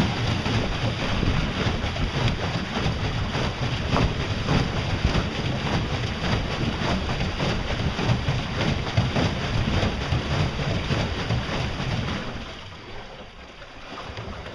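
Pedal boat being pedaled through the water: a steady churning and splashing from its drive, mixed with wind buffeting the microphone. The churning dies down about twelve seconds in.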